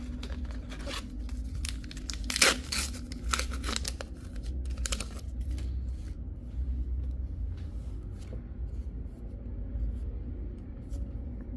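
A foil trading-card booster pack wrapper being torn open and crinkled. The crackling is densest in the first half, loudest about two and a half seconds in, then thins to light ticks of cards being handled.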